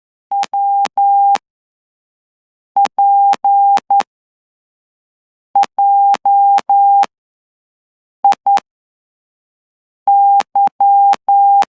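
Hand-keyed Morse code (CW) sidetone from a straight key sent through a CW interface: a single steady tone sounding in short dots and longer dashes at about 12 words per minute. It forms five separate characters with long pauses between them, and there is a click at each key-down and key-up.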